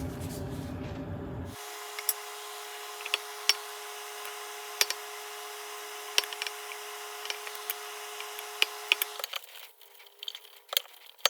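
Metal tins being handled and rubbed with paste wax: scattered light clicks and taps over a steady hum, which stops about nine seconds in.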